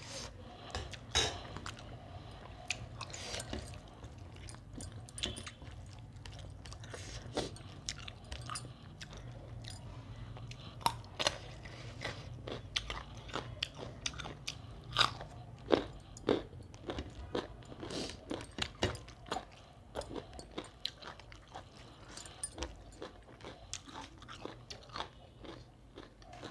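A person chewing and crunching food close to the microphone, biting into a raw carrot stick, with many short, irregular clicks and crunches.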